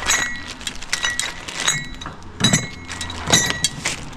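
Hard metal and plastic gear clinking as it is handled and set down: about six sharp clinks with a brief ringing tone, and a couple of duller knocks, over a low steady hum.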